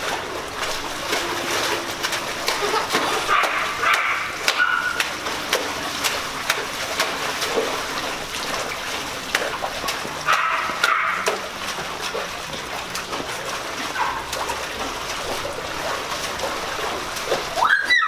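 Water splashing and sloshing in a small plunge pool as a child wades and jumps in it, over a steady hiss of rain. Twice there are short high-pitched cries.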